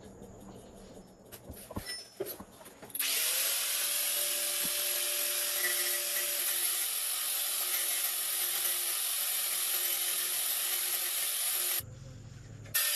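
A handheld power tool starts about three seconds in and runs steadily at constant speed, with a faint steady whine. It stops for about a second near the end, then starts again. Before it starts there are a few light metal clinks.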